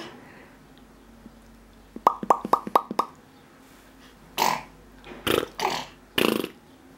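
Baby babbling: a quick run of five short syllables about two seconds in, then a few short breathy vocal sounds in the second half.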